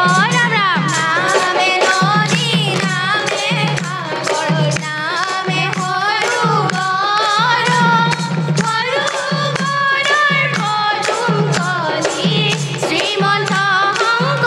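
Teenage girls singing a dihanam, an Assamese devotional hymn, together in one melody with ornamented, wavering lines, and clapping a steady beat.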